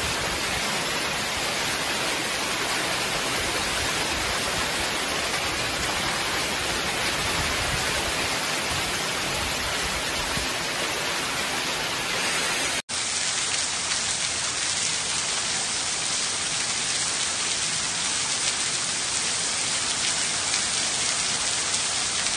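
Hailstorm: hail and heavy rain pouring down in a dense, steady hiss. About 13 seconds in there is a short break, after which the hiss is brighter.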